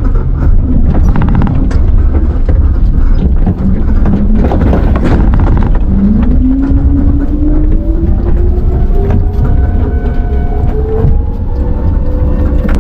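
Electric tricycle on the move: a steady low rumble of wind and road noise. About halfway through, the electric motor's whine comes in and rises steadily in pitch as the trike gathers speed.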